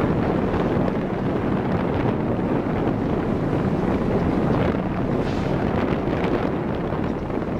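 Wind buffeting the camera microphone on a boat at sea: a steady, loud, low rumble with the wash of choppy water beneath it.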